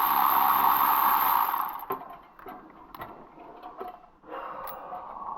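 Hand tools working on a spark plug: a steady whirring hiss runs for the first second and a half and then cuts off, followed by scattered metallic clicks and clinks of the ratchet and socket.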